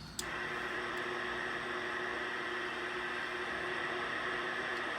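Radio receiver hissing with steady static on an open channel between transmissions, with a faint steady hum under the noise. A short click comes just after the start.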